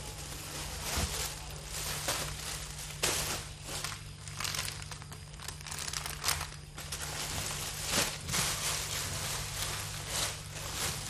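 Cellophane-wrapped packs of foil balloons being handled and shifted, the plastic wrap crinkling on and off.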